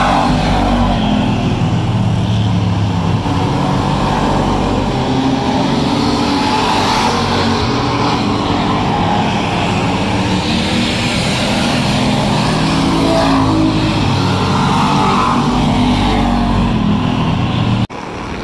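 Race car engines running loud on an asphalt oval, rising and falling in pitch as several cars lap past. The sound drops out abruptly near the end, at a cut.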